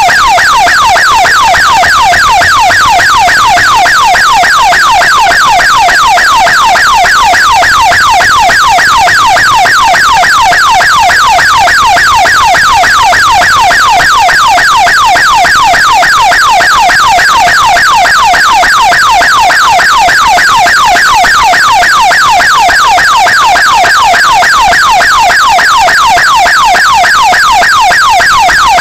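Emergency vehicle's electronic siren sounding a fast yelp, its pitch sweeping steeply down over and over, several times a second, loud and unbroken. It is the vehicle running with warning signals on an emergency run.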